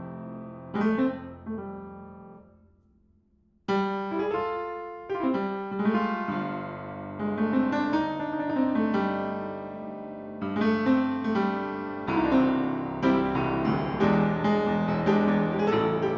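Steinbacher piano being played: a phrase rings out and dies away almost to silence about three seconds in, then playing resumes with a loud entry and carries on with flowing chords and melody.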